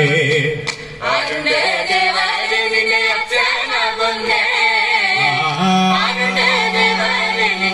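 Group of male and female voices singing a Malayalam folk song (naadan pattu) together, with a brief dip about a second in before the singing picks up again.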